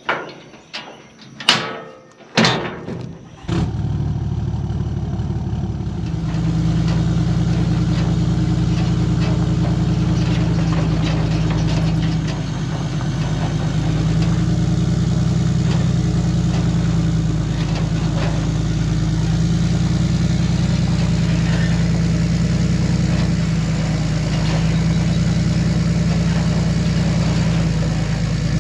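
A few sharp knocks, then a vehicle engine starts about three and a half seconds in and runs steadily, stepping up a little in level about two seconds later.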